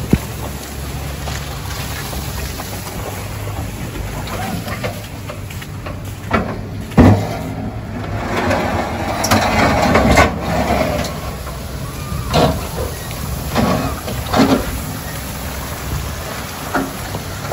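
Pickup truck with a snowplow working wet snow: the engine runs with a steady low hum while the steel plow blade scrapes and pushes slush across the pavement. There is a sharp clunk about seven seconds in, a longer stretch of scraping shortly after, and a few shorter knocks near the end.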